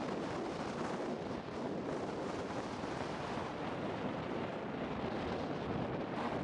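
Volcanic eruption with lava fountaining from a vent: a steady, dense noise with fine crackling running through it.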